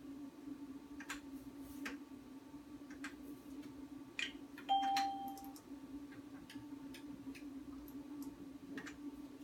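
Ultrasound machine console: a steady low hum, scattered light clicks from its control-panel keys, and one short electronic beep about halfway through.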